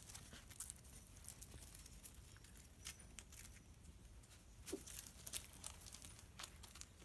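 Scottish terrier puppies padding and rooting about on gravel and dry leaves: faint scattered crunches and clicks of stones and leaves. A short falling squeak comes about five seconds in.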